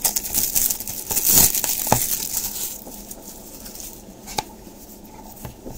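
Packaging of a trading card pack crinkling and tearing as it is opened by hand, with a couple of sharp clicks; the rustling dies down after about three seconds.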